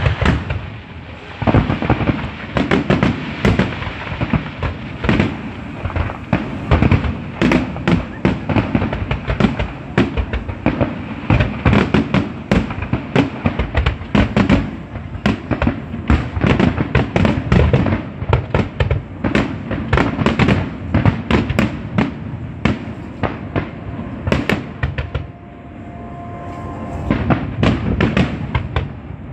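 Fireworks display: aerial shells bursting in a dense, rapid barrage of bangs, easing off briefly near the end before building again.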